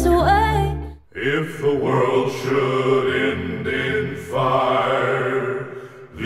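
Music played on a Klipsch The ONE II Bluetooth speaker: a song ends about a second in, and after a brief gap a new track begins with sustained, chant-like layered voices over a steady pad, pausing again near the end.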